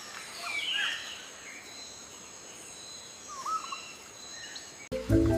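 Natural outdoor ambience: a few short bird chirps over a faint hiss and a thin, steady high insect drone. Music cuts in suddenly near the end.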